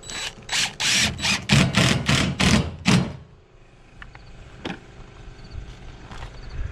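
Cordless DeWalt driver driving a screw through a corrugated steel roof panel, in a run of short bursts over about three seconds. A couple of light knocks follow.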